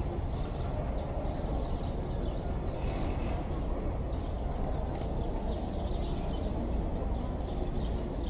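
Outdoor ambience: a steady low rumble and background noise, with scattered short high-pitched ticks throughout.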